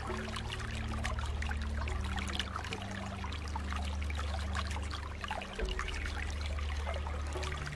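Pool water trickling and splashing in a steady patter of small droplet sounds, over a low steady hum.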